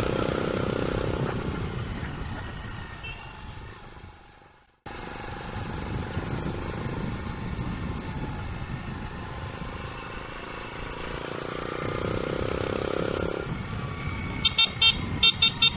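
Motorcycle on the move: steady engine and road noise that fades and cuts out briefly about four and a half seconds in, then comes back. Near the end there is a quick run of short, high beeps.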